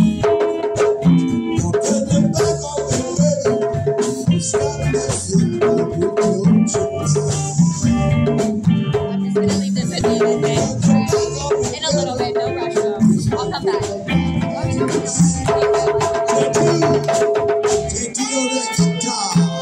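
Live rock band playing: electric guitar, drum kit and congas, with a conga drum struck close by. Sharp hand-drum hits run over the beat, and the bass drops out briefly near the end.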